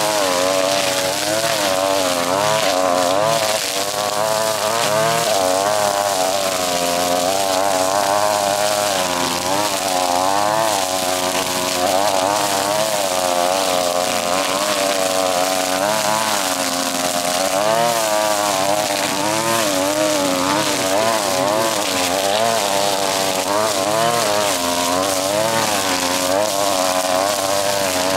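String trimmer running and cutting, its motor pitch rising and falling every second or so.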